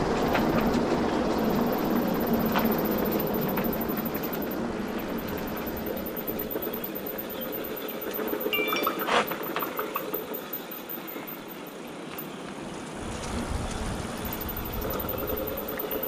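Electric mountain bike rolling along a rough path: a steady rumbling tyre and rattle noise from the bike, with a few sharp clicks and knocks.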